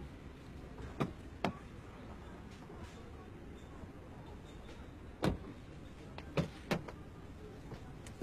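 Car doors being opened and shut: sharp clicks and knocks, two about a second in, a louder thump a little past five seconds and two more soon after, over a low steady background.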